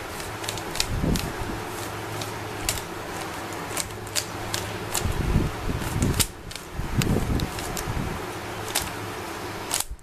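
A plastic 3x3 Rubik's cube being scrambled by hand: rapid, irregular clicks and clacks as its layers are turned, over a steady low hum.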